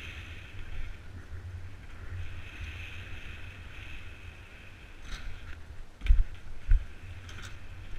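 Bike riding through a park of wooden ramps, heard from a helmet-mounted camera: steady wind rumble on the microphone and tyre noise, with a high hiss that comes and goes. Two heavy thumps about six seconds in, half a second apart, as the wheels hit and land on a wooden ramp.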